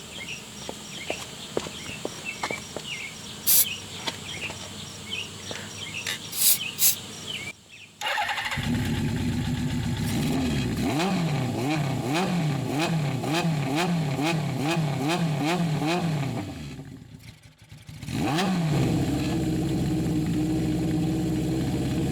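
Carbureted motorcycle engine, its carburetor slides just rebuilt, starting about eight seconds in and being blipped repeatedly, each blip rising and falling in pitch. It dies away briefly, then runs again and settles to a steady idle. Before it starts there are only scattered light clicks and chirps.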